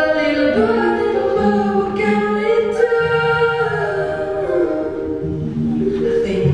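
Several voices singing together in harmony without instruments, holding long chords that shift every second or so.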